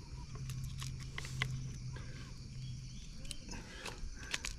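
Scattered light clicks and rattles of handling, from a plastic fish-lip gripper and a hooked lure being worked at a caught snapper's mouth. A low steady hum runs underneath for the first three seconds or so, then stops.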